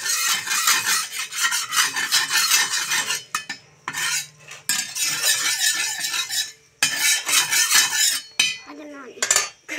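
Flat steel spatula scraping back and forth across an oiled iron tawa, spreading the oil. It comes in several long stretches of strokes with short breaks between them.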